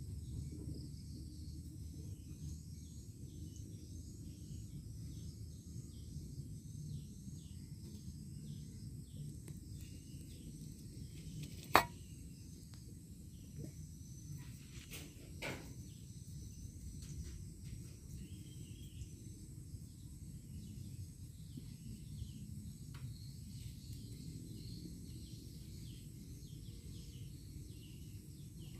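Faint outdoor ambience: a steady low rumble with many small high chirps. A single sharp click comes about twelve seconds in, and two fainter ticks follow a few seconds later.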